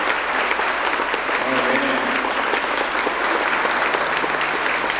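A crowd applauding: a steady clatter of many hands clapping.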